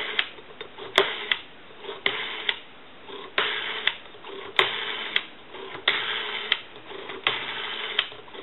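Rotary dial of a Kellogg telephone being wound and let go digit after digit. Each spin returns with a short mechanical whirr and ends in a sharp click, about one digit every second.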